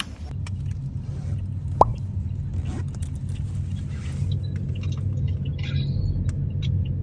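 Low, steady rumble of a motor vehicle running, with one short rising chirp about two seconds in.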